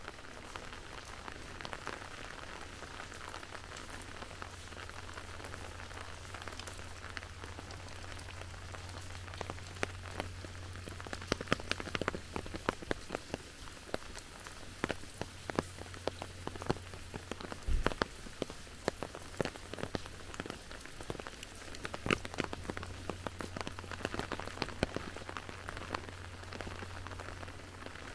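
Rain falling steadily, with many sharp, close drop hits that come thickest from about a third of the way in to about three quarters of the way through, over a low steady hum.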